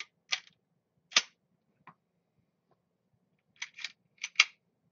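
Sharp clicks and clacks of a Smith & Wesson M&P .40 pistol's parts being worked by hand during takedown: single clicks about a second apart, then a quick cluster of four near the end.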